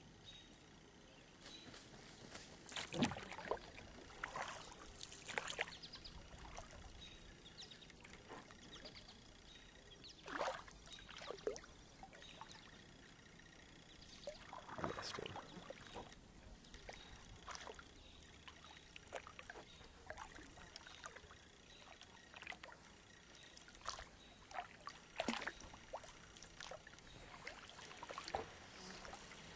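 Kayak paddle strokes: the blade dipping and pulling through the lake water in irregular splashes, with water dripping and trickling off it between strokes.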